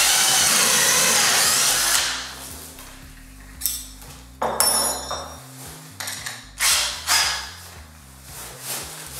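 Total TDLI2002E 20 V cordless drill boring into a wooden beam in second gear for about two seconds, then winding down. It is followed by a handful of separate clicks and knocks as the bit is taken out and a wood auger bit is fitted and tightened in the keyless chuck.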